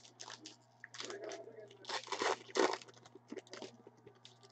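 Trading card packs and cards being handled: a run of crinkling and rustling, loudest about two seconds in.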